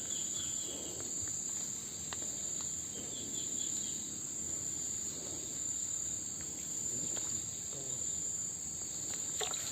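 Steady high-pitched chorus of insects at dusk, an unbroken shrill drone, with a couple of short chirp runs, one about three seconds in.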